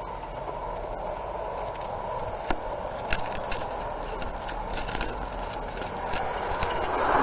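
Large-scale garden railway train running along the track as it approaches: a steady rolling hum with scattered clicks from the wheels on the rails, growing louder near the end.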